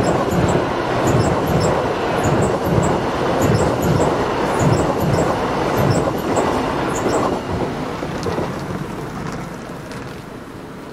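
LNER Azuma Class 801 electric train passing at speed: a loud steady rolling noise from wheels on rail with a regular low beat of the wheels over the rail joints, fading away from about seven seconds in as the last carriage passes.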